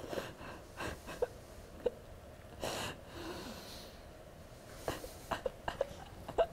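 A woman crying: uneven sobbing breaths with short, broken, pitched sobs scattered through, and one longer breath a little under three seconds in.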